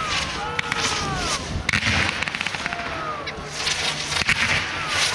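Aerial fireworks display: dense crackling and sharp pops from bursting crackle shells and a ground-fired effect, over a steady hiss. A few short tones that glide up and down run through it.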